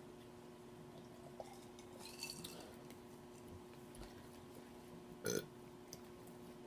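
A woman's short burp about five seconds in, while she is eating fried chicken.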